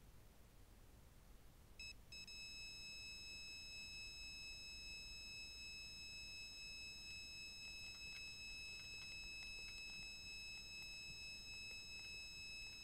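Electronic carp bite alarm sounding a steady high continuous tone, starting about two seconds in after a brief stutter: a fish is taking line on a run.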